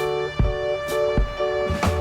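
Background music: sustained instrumental notes over a steady beat of about two strikes a second.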